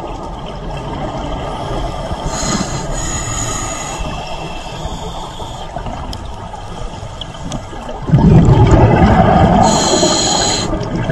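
Scuba diver's breathing heard underwater: a hissing inhale through the regulator, then a loud rush of exhaled bubbles starting about eight seconds in.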